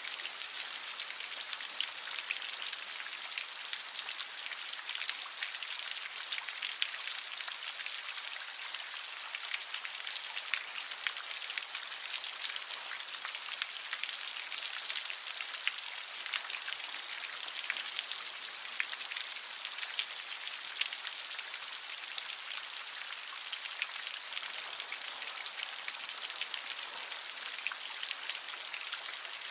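Steady rain falling: a dense patter of countless individual drops hitting a surface, with hardly any low rumble.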